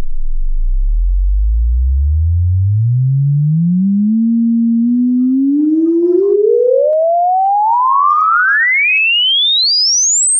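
Pure sine tone from an online tone generator sweeping upward in pitch, from a very low hum of about 13 Hz to a high whistle of several thousand hertz, as the frequency slider is dragged. It levels off briefly about four seconds in, then climbs steadily.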